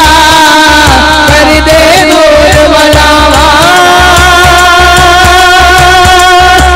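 A man singing a Punjabi-Urdu naat into a microphone, drawing out long held notes with a wavering vibrato, over a steady low pulsing beat.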